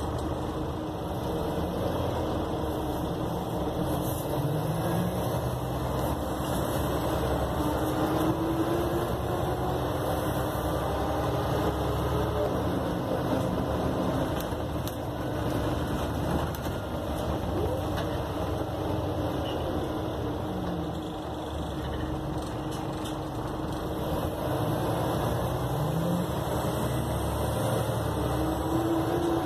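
A single-deck bus's diesel engine and drivetrain heard from inside the passenger saloon while the bus is driving. The engine note rises several times as the bus accelerates, over steady road noise.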